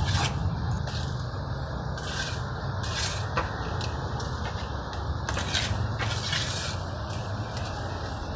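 Plastering trowel scraping and smoothing wet cement render on a block wall, in a run of short, irregular strokes over a steady low rumble.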